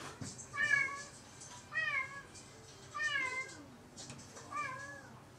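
A domestic cat meowing four times, about a second apart, each call short and rising then falling in pitch.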